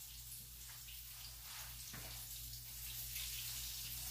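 Faint, steady sizzle of battered cauliflower pieces frying in hot oil in a pan, with a soft knock about two seconds in.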